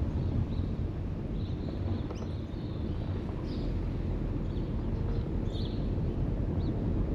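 A car driving: steady low road and wind noise on the camera's microphone. Short high chirps come and go throughout.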